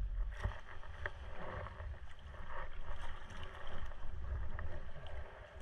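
Kayak paddle blades dipping into calm sea water, splashing and dripping in irregular strokes about once a second, over a steady low rumble.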